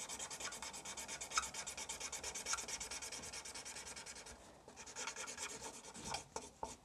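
Felt-tip marker scribbling rapidly back and forth on paper while colouring in, about six strokes a second. The strokes pause briefly about four seconds in, and there are a few sharp taps near the end.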